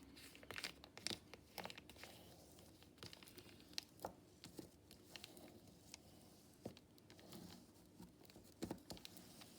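Paper being handled: faint rustling with scattered light clicks and taps, a few of them sharper, around one and four seconds in and again near seven seconds.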